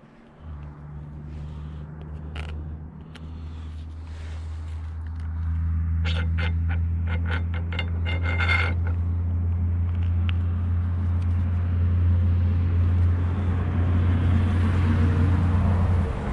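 A steady, low mechanical hum that gets louder about five seconds in and stops just before the end. A quick run of light clicks comes about six to nine seconds in.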